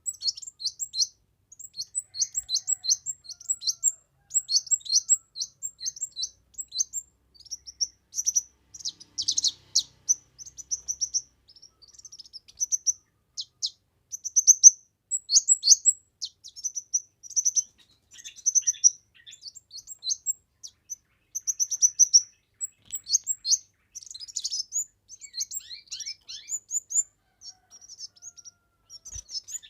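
A kemade bird singing busily: rapid runs of short, high chirping notes in repeated phrases with brief pauses between them.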